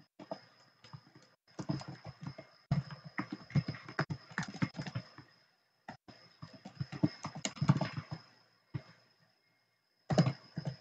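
Computer keyboard being typed on in quick runs of keystrokes, two bursts of a few seconds each with a short pause between. A faint steady high whine runs underneath.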